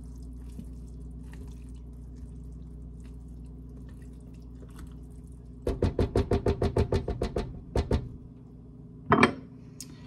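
A serving spoon is stirred through the food in a crock pot with faint scrapes. Then it is knocked rapidly against the pot's rim, about eight short ringing taps a second for two seconds. A few more knocks follow, over a steady low hum.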